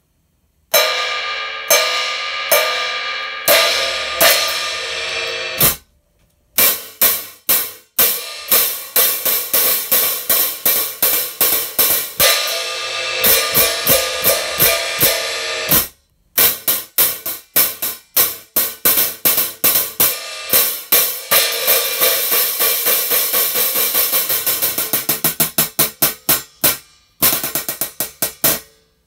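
A pair of 13-inch hi-hat cymbals struck with a drumstick. A few washy open hits ring on, then runs of strokes come faster and faster toward the end, and the ringing cuts off sharply a few times as the hats are closed.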